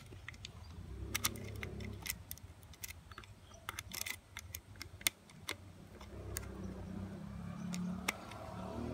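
Scattered small clicks and ticks of a screwdriver tip working a terminal screw on a plastic wall socket, with the plastic socket and back box knocking as they are handled.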